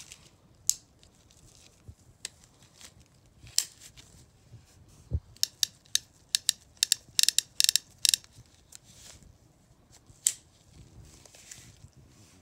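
Metallic clicks from the action of a French Model 1873 11mm service revolver being handled: a few single clicks, then a quick run of a dozen or so clicks in the middle as the cylinder is turned by hand, and one more click near the end.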